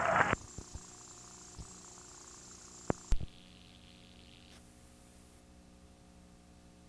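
A bluegrass band's music cuts off abruptly at the very start. It leaves a faint, steady electrical hum, broken by a few sharp clicks about three seconds in.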